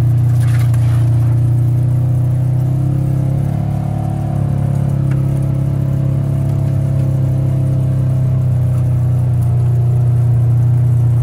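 A steady low mechanical hum, like an engine idling, with one strong low tone and fainter overtones that dip briefly about four seconds in.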